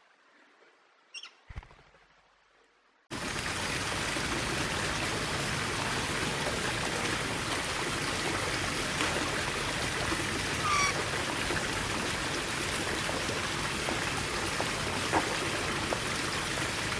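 Near silence with a couple of faint short chirps, then about three seconds in a steady rushing noise starts suddenly and runs on, with a few faint bird chirps over it.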